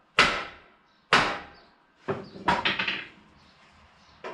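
Hammer blows on steel, with each strike ringing briefly: two heavy blows about a second apart, then a quick run of lighter knocks about two seconds in.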